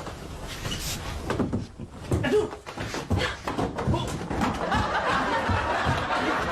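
Indistinct voices with scattered knocks and thumps, the voices thickening into a murmur about two thirds of the way through.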